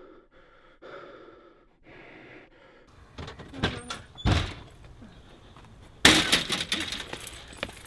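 Scattered knocks and a heavy thump, then a door banging loudly about six seconds in, rattling as it dies away.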